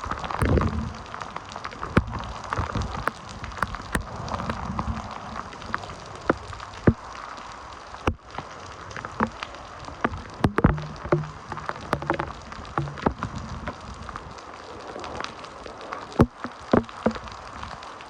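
Heavy typhoon rain falling as a steady hiss, with frequent irregular sharp drops or drips striking a hard surface close by.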